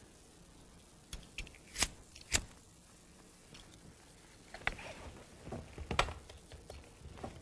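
Scattered small clicks and knocks with light rustling: handling and fidgeting noise. There are a few isolated clicks, then a busier cluster in the second half, the loudest click about six seconds in.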